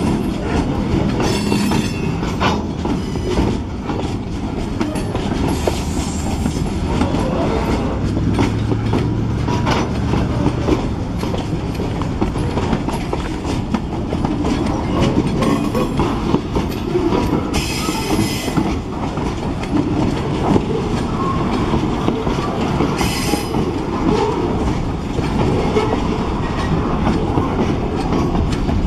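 Freight cars of a long freight train, log-loaded flatcars and covered hoppers, rolling past close by: a steady rumble of steel wheels on the rails with clickety-clack over the joints. Short high-pitched wheel squeals cut in about two seconds in, again around eighteen seconds, and once more a few seconds later.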